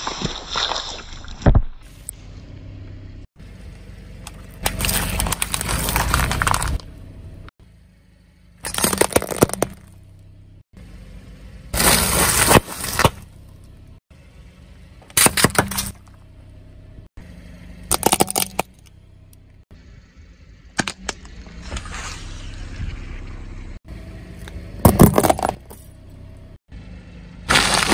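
A car tyre crushing a series of objects one after another: drink cartons bursting and spraying, instant-noodle packets crunching, and a small metal-look crown snapping. There are about nine separate crunches, each cut off abruptly by the next.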